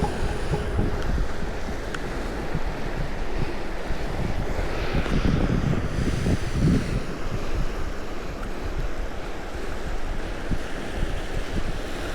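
Wind buffeting the microphone over the wash of sea waves on the shore, a steady rushing noise with gusty low rumbling.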